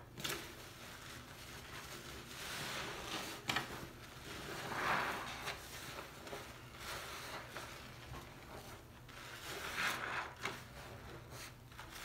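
Soapy sponges squeezed and wrung by hand in suds: wet squelching and crackling foam, coming in swells, with a few sharp clicks.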